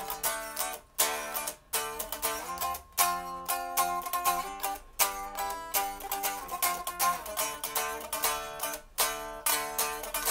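Jackson Kelly KX10 electric guitar played amplified: quick runs of picked single notes, with brief stops between phrases.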